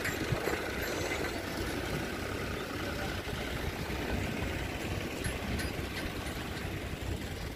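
A vehicle engine running steadily, under a dense low rumble.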